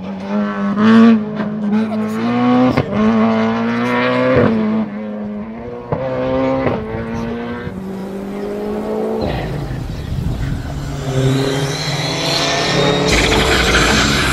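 Rally car accelerating hard out of a hairpin, its engine climbing in pitch and dropping back with several quick gear changes. About nine seconds in, the sound switches to a second rally car, a Ford Fiesta, approaching at speed, its engine and tyre noise growing louder.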